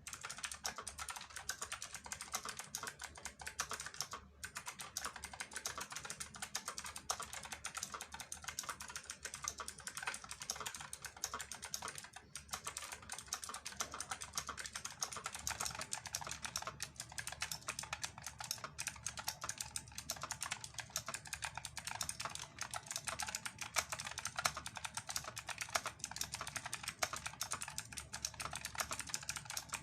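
Fast, continuous typing on an IQUNIX M80 mechanical keyboard with clicky Kailh Blue switches, with brief pauses about four and twelve seconds in.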